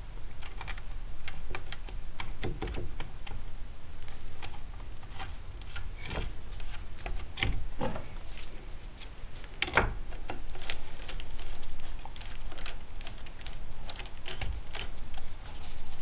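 Irregular small clicks, taps and scrapes of metal and wood as a Lakefield 64B .22 semi-automatic rifle is handled during reassembly and a screwdriver is brought to its stock screw, with a louder knock about ten seconds in.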